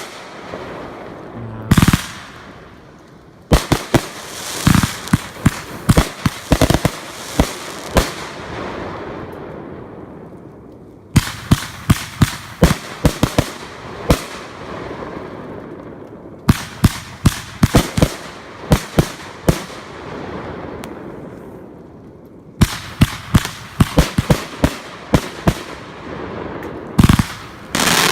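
Consumer fireworks going off in several rapid volleys of sharp bangs. Each volley trails off into a fading crackle before the next one starts.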